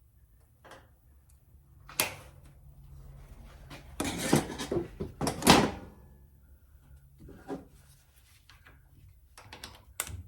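Pliers working a small steel retaining ring off the brake pedal shaft of a 1972 VW Super Beetle pedal assembly: a sharp metal click about two seconds in, a loud scraping clatter of metal on metal from about four to six seconds, and a few more clicks near the end.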